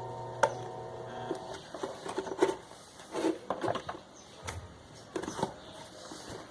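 A small electric fan motor hums steadily and stops about a second in, followed by scattered clicks and knocks of small parts being handled.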